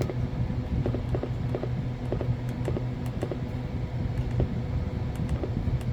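Small plastic buttons on a mobile radio's front panel being pressed, a dozen or so light clicks at irregular spacing, over a steady low electrical hum.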